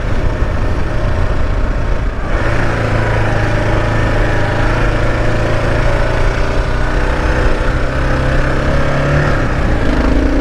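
Kawasaki KLR 650's single-cylinder engine running steadily while riding, over a low wind rumble on the microphone. The engine note becomes clearer about two seconds in and rises slightly near the end.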